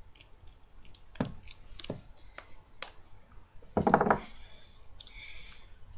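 Hands handling a small piece of duct tape and a pair of scissors on a desk: scattered light clicks and rustles, with a louder knock about four seconds in.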